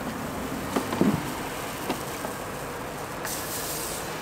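A few light clinks and knocks of crepe-making utensils, a metal ladle and steel batter bowl, the loudest cluster about a second in, over steady street background noise.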